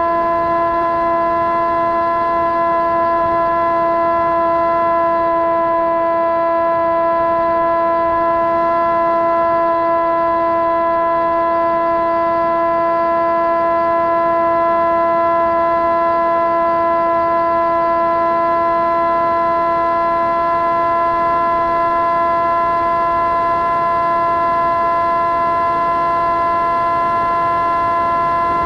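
Electric motor and propeller of an FPV model aircraft in flight at constant throttle, heard through the onboard camera's microphone: a loud, steady whine with a stack of overtones, holding one pitch throughout.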